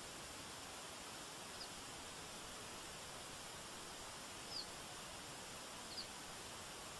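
Steady rush of a forest stream, with a small bird giving three short, high, falling chirps about a second and a half, four and a half, and six seconds in.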